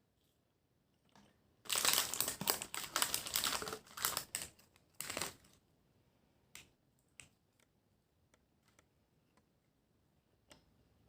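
A burst of dense crinkling and clicking for about four seconds, followed by a few scattered single clicks.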